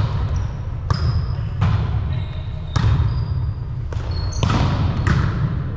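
A volleyball being hit again and again in a rally on an indoor court: about five sharp slaps a second or so apart, each ringing on in the large hall. Short high squeaks and a steady low hum run beneath.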